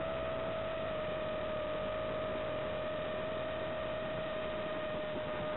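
Arris X210S quadcopter's motors and propellers running steadily at cruise throttle, heard through the FPV camera's microphone over the analog video link: one steady whining tone with fainter overtones that sags slightly in pitch, over a constant hiss.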